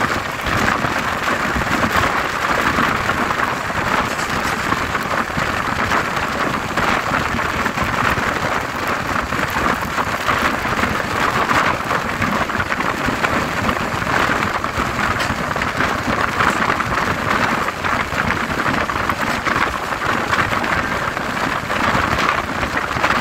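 Steady hiss of rain and rushing air at the side of a moving express train, over the low rumble of its coaches running on the track.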